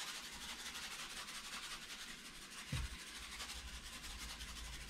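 Salt being shaken from a cardboard box onto a wet bamboo cutting board: a faint, fast, even pattering hiss of falling grains. A soft knock comes a little under three seconds in.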